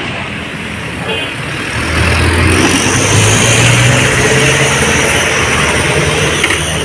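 Road traffic noise with a vehicle engine running, its low hum growing louder about two seconds in.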